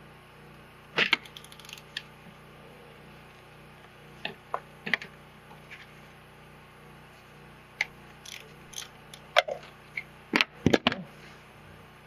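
Small socket ratchet and pliers working the 8 mm bolt on a snowmobile power-valve servo motor gear: scattered sharp metal clicks and clinks, with a louder cluster of several near the end.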